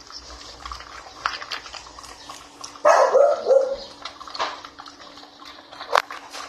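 American bully puppy giving a short run of barks about three seconds in, among puppies eating, with sharp clicks of kibble and the steel food bowl.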